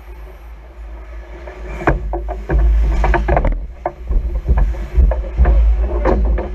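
Ice hockey play in a rink: sticks, puck and skates making sharp clacks and knocks, coming thick and fast from about two seconds in, over a steady low rumble.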